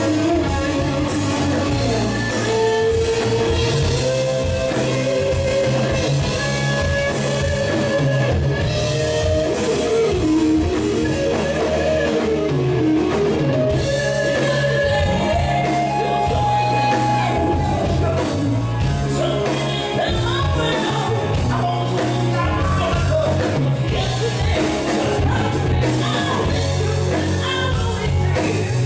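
Live rock band playing: electric guitar melody over bass and drum kit, with singing.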